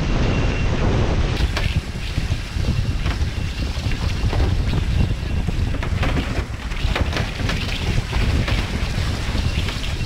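Wind buffeting the microphone of an onboard camera on a foiling A-Class catamaran at speed, a steady heavy rumble, with the hiss and splashes of spray and water rushing past the hull and foils.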